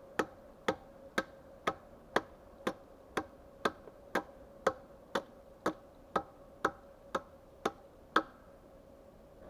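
Steady, sharp knocks at an even two a second from hand-tool strikes on wood, stopping about eight seconds in.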